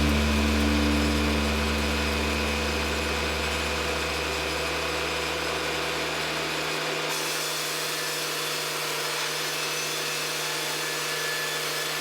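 Sawmill running while milling white pine logs: a steady mechanical noise of motor and saw, with a deep low hum that fades out a little past halfway.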